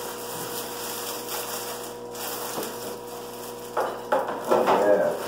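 Thin plastic wrapping crinkling and rustling as it is pulled off an aquarium filter, growing into louder irregular crackling near the end.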